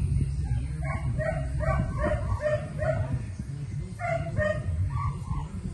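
A dog barking in quick runs of short, fairly high-pitched barks, about three a second, with a brief pause about three seconds in, over a steady low rumble.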